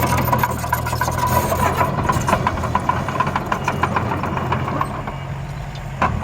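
Miniature construction vehicle running steadily: a low engine hum with a thin steady whine and rapid clicking and rattling over it, and a sharper click near the end.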